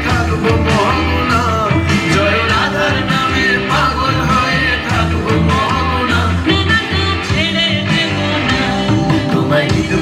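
A song with singing over a steady beat and bass, played through the stage's loudspeakers.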